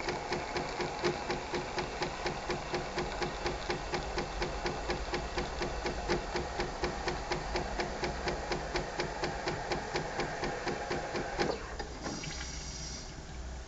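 Franke Flair bean-to-cup coffee machine's pump pulsing at an even rate of about five strokes a second as it dispenses hot milk for a latte macchiato. It stops about eleven and a half seconds in and is followed by a brief hiss.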